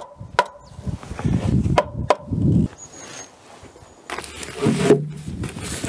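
Four sharp wooden knocks with a short ring in the first two seconds or so, a wooden mallet striking timber on a sawhorse, with scuffing and handling noise between the blows. A low droning sound comes in about five seconds in.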